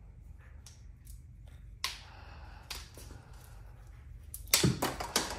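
Hand snips cutting through a plastic frameless-shower-door sweep seal: a few separate sharp snips, then a quick run of louder snaps near the end.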